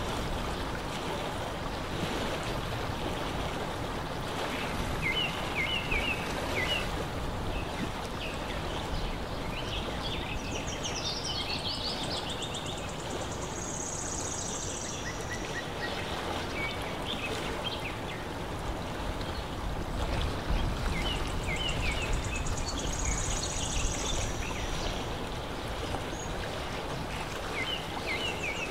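Steady wash of lake water lapping at the shore, with short bird chirps several times and a high buzzy trill twice.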